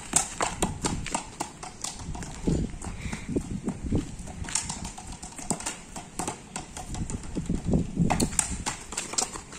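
A toddler's sandals slapping and scuffing on a tiled patio in quick, irregular steps, with a few duller thuds as a plastic ball is kicked and bumps against a wall.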